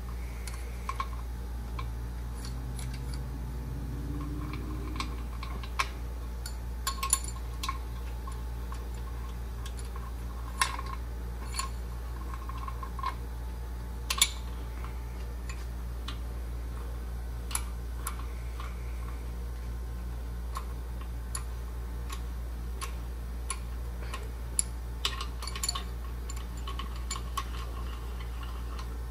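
Hand ratchet clicking and the socket clinking as it runs the main cap bolts down on an LS engine block, in irregular short runs. A steady low hum runs underneath.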